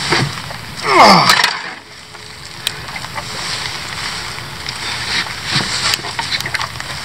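A man's wordless groan, falling in pitch, about a second in, then a few light clicks and knocks from handling on a boat deck, over steady wind noise on the microphone.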